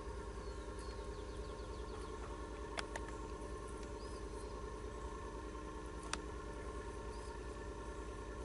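Steady low hum with faint, short, high bird chirps now and then, and a few sharp clicks: two close together about three seconds in and one about six seconds in.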